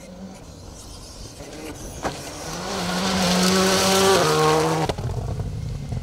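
Skoda Fabia rally car coming through on a gravel stage, its engine revving hard under power and getting louder as it approaches, with a sharp crack about two seconds in. The engine note steps down about four seconds in, then cuts off sharply a second later as the car goes by.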